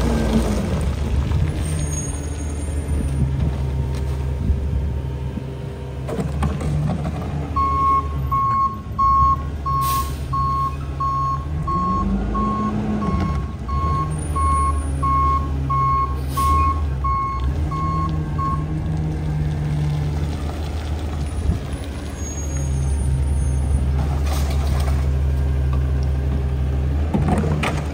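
Heil rear-loader garbage truck's natural-gas engine running while the truck backs up, its reversing beeper pulsing a little more than once a second for about ten seconds in the middle. Two short air-brake hisses come during the beeping, and the engine revs up briefly partway through.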